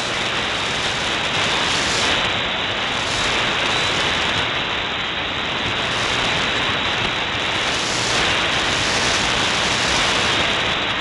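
Shortwave receiver (SDRplay RSPdx) tuned to 6185 kHz in the 49-meter band, giving steady static and hiss: the station there is too weak to make out any program.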